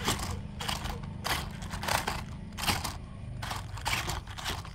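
Toy RC rock crawler driving over clay roof tiles: a steady low drone from its electric motors and gearboxes, with about seven short crunching scrapes from the tyres on the tiles, one every half second to second.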